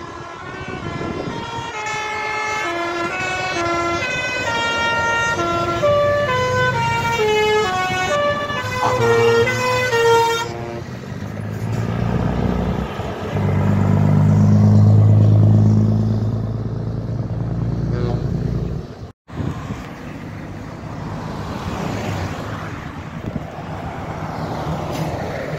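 A truck's musical multi-tone air horn playing a quick tune of stepped notes for about ten seconds. Then a deep, loud drone from a truck passing close, swelling and fading, broken by a brief dropout, followed by the rumble of passing traffic.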